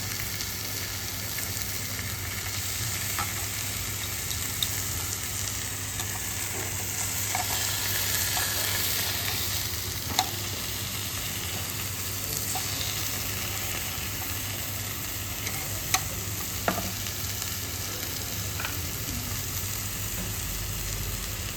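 Meat sizzling steadily on a hot tabletop grill, the sizzle swelling for a few seconds near the middle. A few sharp clicks of utensils against the grill or dishes.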